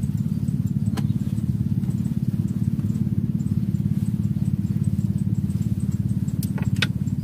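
A small engine running steadily, a low even drone with a fast regular pulse, with a few faint clicks about a second in and near the end.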